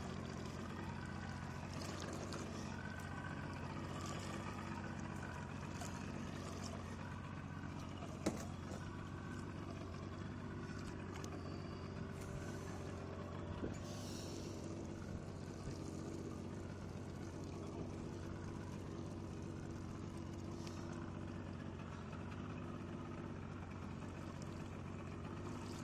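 Boat engine idling steadily with a low, even hum. A single sharp knock comes about eight seconds in.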